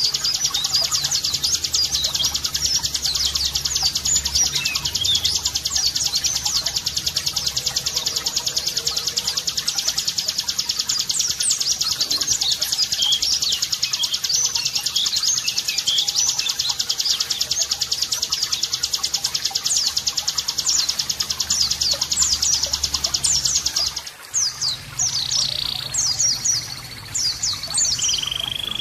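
Small songbirds singing: a very fast, continuous high trill with quick chirps over it. About 24 s in, this gives way to separate high chirps and short whistles.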